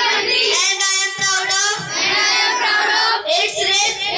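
A group of children's voices chanting in unison, with arms outstretched in the gesture of a school pledge.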